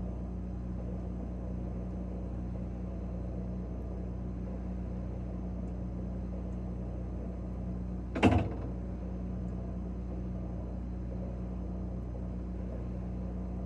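Steady low refrigerator hum with a few fixed low tones, heard from inside the fridge. About eight seconds in, one sharp knock briefly rings out over it.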